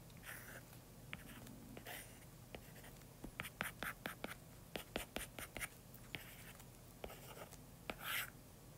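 A stylus tapping and scraping on a tablet's glass screen as lines and short hatching strokes are drawn. It gives a run of quick clicks through the middle, with a few short scratchy strokes.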